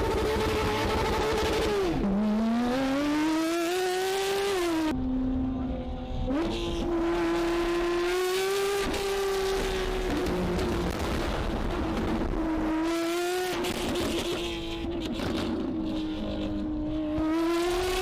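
Modified Porsche 911 GT3's flat-six engine running at high revs. Its pitch drops sharply about two seconds in and climbs back, breaks off abruptly around five and six seconds, then holds high and fairly steady with small rises near the end.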